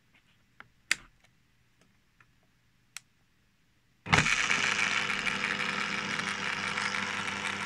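A few clicks at the drill's controls, then about four seconds in the brushed (commutator) motor of a home-built electric drill starts suddenly and runs steadily, its speed held by a Hall-sensor tachometer feedback controller.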